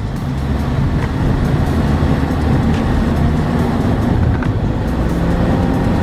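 Steady road and engine noise of a moving car, heard from inside, with faint music underneath.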